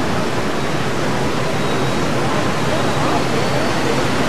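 Steady, even rushing of water churned by the paddle steamer Waverley's paddle wheels as she steams along.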